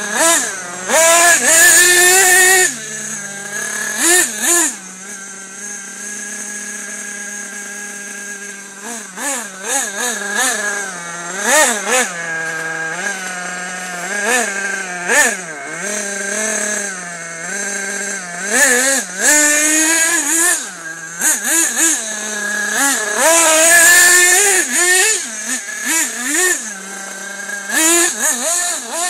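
Nitro RC buggy's small two-stroke glow-fuel engine, revved up and down over and over as it is driven, with a steady idle for a few seconds about six seconds in. It is loudest in high-pitched bursts near the start and again about twenty-three seconds in.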